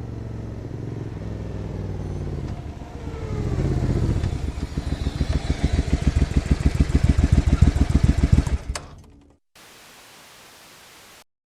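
Harley-Davidson V-twin motorcycle engine running, blipped up in revs and then settling into a loud, pulsing, lumpy idle before it cuts off abruptly. A steady hiss follows near the end.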